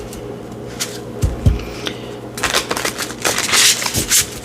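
A tarot deck being shuffled by hand: crisp bursts of card rustling, busiest in the second half, with a few soft thumps of cards against the table.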